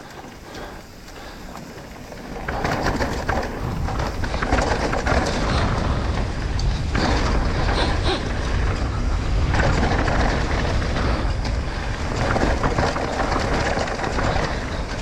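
Mountain bike ridden down a dirt trail: a steady rushing, rumbling noise with many small knocks and rattles, which gets much louder about two and a half seconds in as the bike picks up speed.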